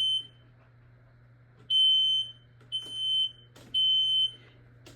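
Smoke alarm sounding in the three-beep temporal pattern, set off by test smoke: a high piercing beep ends just after the start, then after a pause three beeps follow a second apart. A couple of faint clicks fall between the beeps.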